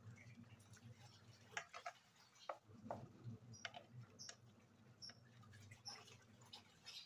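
Wooden spoon stirring a yogurt mixture in a stainless steel bowl: faint wet squelches and scattered clicks, over a low steady hum.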